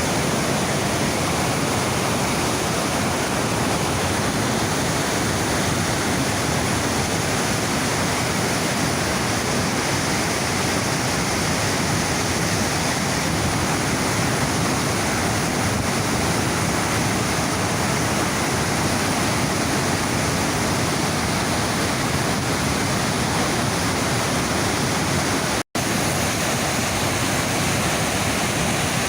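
The Niagara River's rapids rushing just upstream of the brink of Niagara Falls: a loud, steady roar of fast white water. A split-second dropout to silence comes near the end.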